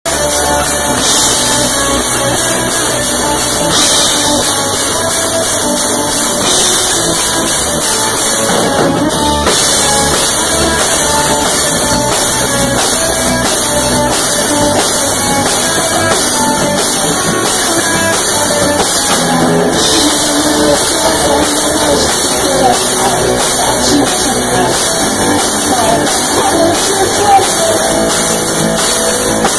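Pop-punk band playing live: electric guitar over a drum kit, loud and continuous.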